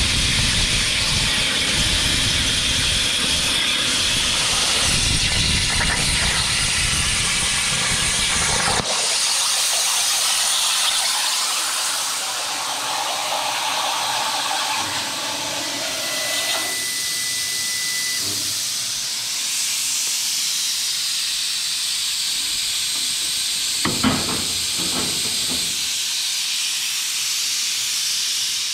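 Plasma torch on a CNC table cutting aluminum diamond-plate: a loud hiss with rumble and crackle. About nine seconds in the arc stops and a steady air hiss carries on, with a single clunk near the end.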